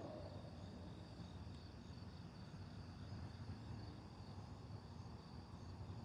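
Crickets chirping faintly in a steady night chorus, over a low, steady rumble. The tail of a louder passing sound dies away in the first moment.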